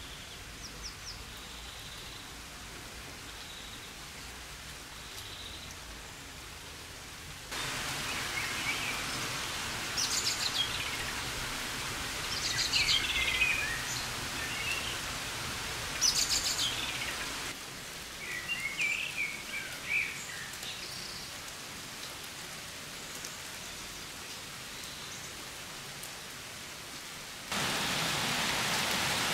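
Steady rain falling, with birds singing short chirping and warbling phrases, most clearly through the middle. The rain hiss changes level suddenly a few times, louder from about a quarter of the way in, softer again past the middle, and louder near the end.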